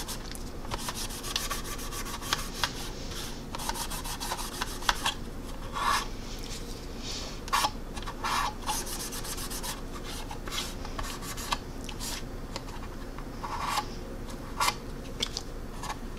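Paper towel rubbed in repeated strokes over the gloss-coated plastic wing of a scale model aircraft, wiping off dried panel-line wash.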